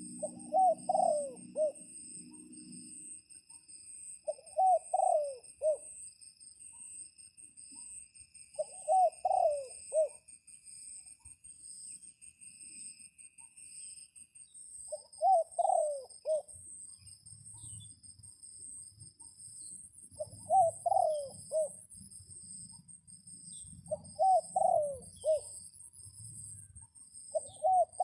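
A dove cooing, a short phrase of several notes repeated about every four seconds, seven times, over steady high-pitched insect trilling.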